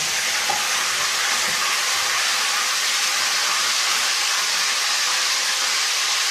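Cow's milk frying in hot mustard oil in a small kadai, a steady sizzling hiss as the milk's water boils off in the oil.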